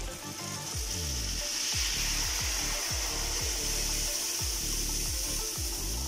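Rice-and-egg batter being poured into hot ghee in a pan and frying with a steady sizzle that rises within the first second.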